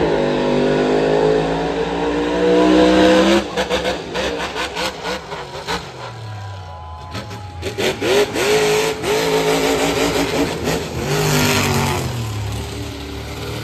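Monster truck engine revving hard, its pitch climbing steadily for about three seconds. The throttle is then lifted with a run of sharp crackles, and the engine revs and rises again as the truck drives past.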